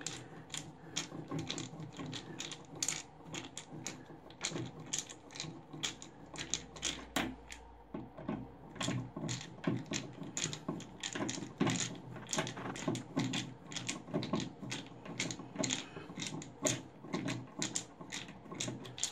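Phillips screwdriver driving the screws of a bathtub drain's chrome overflow cover plate: a long run of sharp metal clicks, about two or three a second.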